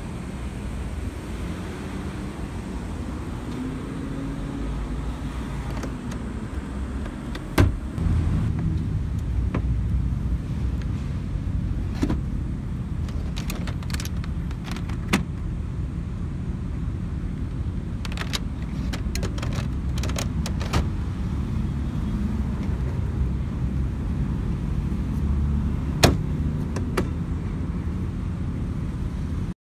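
Sharp plastic clicks and knocks as the Honda N-VAN's folding seats are handled: latches releasing and seat panels being pushed and set down. There are a few single clicks and two quick clusters over a steady low rumble, and the loudest clicks come about eight seconds in and near the end.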